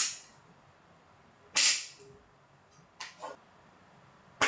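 Sharp plastic clicks and snaps as 3D-printed ABS visor sections are pressed together onto their insert pins. There is one at the start, a louder one about a second and a half in, a quick double click around three seconds, and another near the end.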